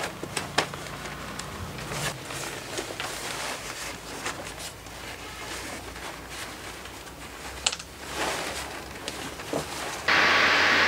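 Thin paper for a stone rubbing crinkling and crackling in irregular small clicks as it is handled and smoothed over the carved stone. Near the end a much louder steady rushing noise with a thin whine cuts in abruptly.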